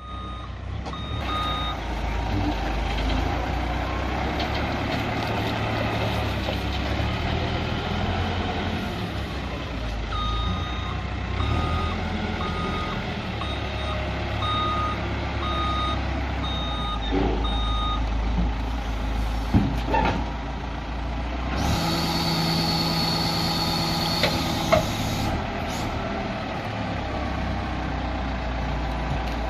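Diesel engine of a backhoe loader running, with a reversing alarm beeping in a regular series near the start and again for several seconds midway. A few sharp knocks and a steady high whine lasting a couple of seconds come later on.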